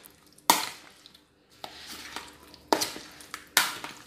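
A metal spoon mixing chunks of raw chicken breast and cut vegetables in a marinade in a bowl: wet scraping, clattering strokes, four of them about a second apart.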